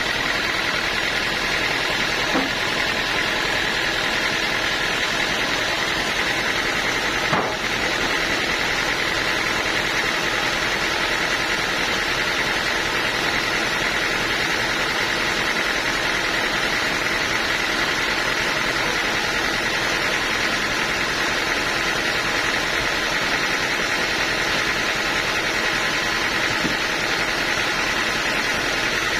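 Band sawmill running steadily: a continuous mechanical drone with a steady high whine. There is a single short knock about seven seconds in.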